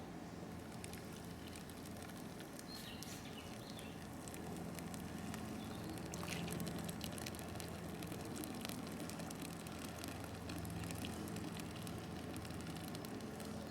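Wet pourable concrete filler being poured from a bucket into a pothole, heard as a faint patter of small ticks and slops over a low steady hum.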